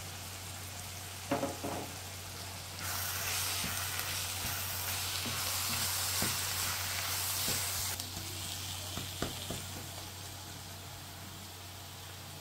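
Diced zucchini and onion sizzling in a nonstick frying pan as berbere spice powder is stirred in with a wooden spoon. The sizzle grows louder from about three seconds in and eases off again near eight seconds. There are a few light knocks of the spoon against the pan.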